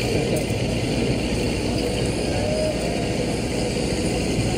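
Steady city street traffic: vehicle engines running, the sound even and heaviest in the low pitches.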